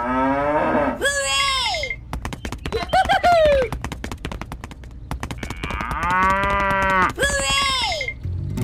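Cow mooing several times, calls that rise and fall in pitch, with a fast run of clicks in the middle.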